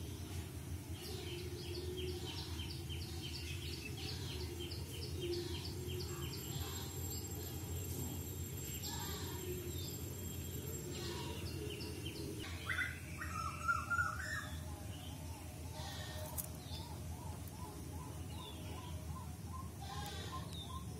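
Birds chirping in repeated short runs over a steady low background rumble, with one louder animal call about halfway through.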